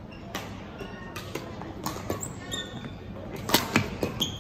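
Badminton rally: sharp cracks of rackets striking the shuttlecock at irregular intervals, with short shoe squeaks on the court floor. The loudest run of hits comes about three and a half seconds in.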